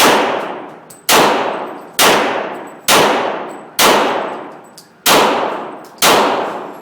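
9mm handgun fired in a steady string of seven shots, about one a second, each shot ringing and echoing away before the next.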